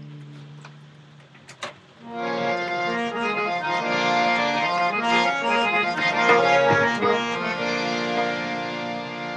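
Harmonium playing a melody in held reed notes, coming in about two seconds in after a fading held chord and a couple of faint clicks.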